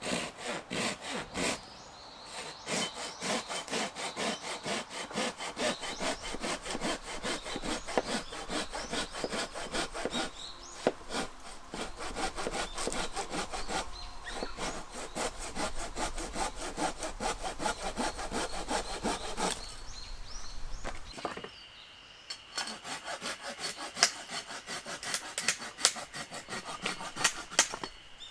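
Hand saw cutting through wood in quick, even back-and-forth strokes, stopping briefly a few times before starting again.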